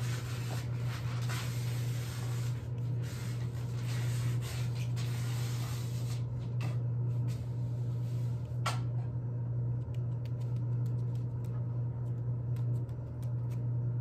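A steady low hum with a faint hiss over it, broken by scattered small clicks and rustles, which come more often in the second half, and one brief sharp sound near the middle.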